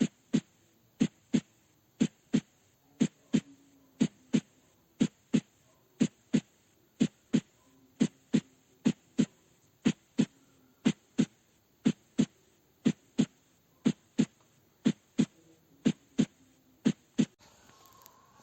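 Recorded heart sounds through a stethoscope: a steady tum-ta, the first and second heart sounds as pairs of short thuds about a third of a second apart with a longer pause after each pair, at about one beat a second.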